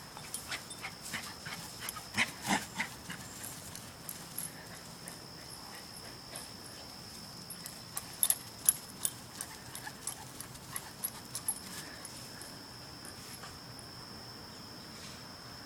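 Animals romping about: irregular thumps and clicks of footfalls, bunched near the start and again around the middle, over a faint steady high whine.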